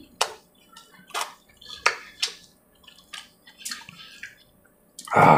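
Close-up wet chewing and lip-smacking of a person eating chicken curry with puri by hand: a string of separate moist clicks and smacks. A short voiced sound from the eater comes near the end.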